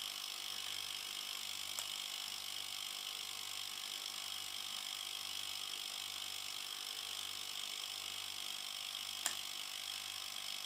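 Refrigerator compressor running steadily with a low hum after being started on a direct mains hookup through a push-button start switch, with two faint clicks about two seconds in and near the end. Its current draw of under one amp marks the compressor as healthy.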